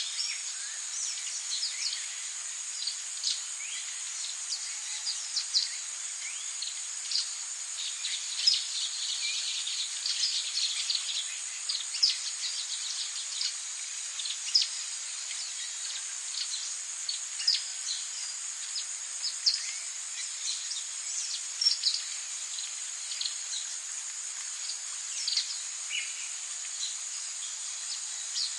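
Forest ambience: a steady high-pitched insect drone, like crickets, with many short bird chirps scattered throughout.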